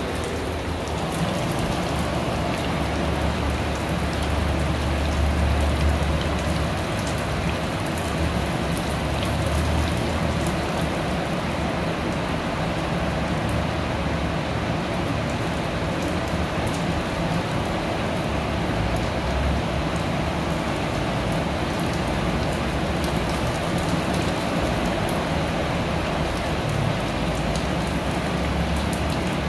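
Steady rainfall, an even hiss of falling rain with fine drop patter. A low rumble runs underneath, strongest in the first several seconds.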